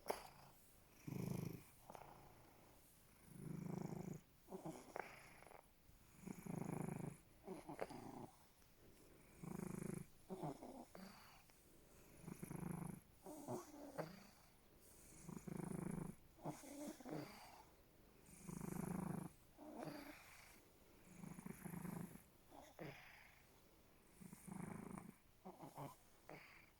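Domestic cat purring and snoring at the same time while resting. The sound swells with each breath, roughly every three seconds.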